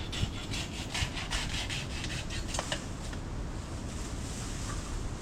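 A saw cutting through a bamboo stalk with quick back-and-forth strokes, about three a second. The sawing stops about three seconds in.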